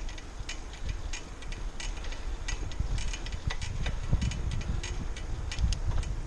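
Wind rumbling on the microphone of a camera riding on a moving bicycle, with irregular light ticks and clicks from the bike, several a second.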